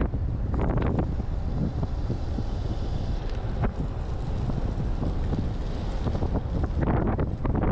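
Wind buffeting an action camera's microphone on a road bike descending at speed: a steady low rumble, with a few short clicks.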